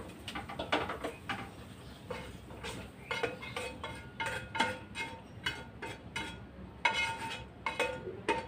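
A spoon scraping and knocking against a frying pan as sticky, sugary rice is scooped out of it into a steel pot: a string of short clinks and scrapes, a few of them ringing briefly.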